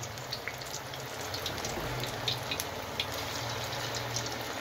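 Spinach pakoras deep-frying in hot oil in a wok: a steady sizzle with frequent small crackles and pops.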